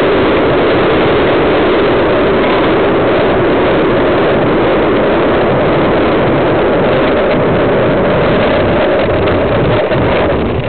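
Skateboard wheels rolling over coarse, gritty asphalt, a loud, steady rumble picked up by a camera riding just above the board.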